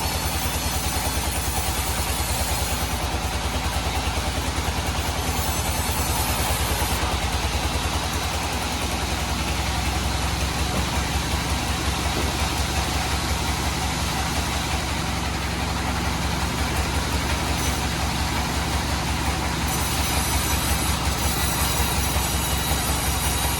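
Bandsaw sawmill running steadily while sawing teak, a low machine drone with a fast even pulse under a wide hiss of blade and wood noise that shifts in character a few times.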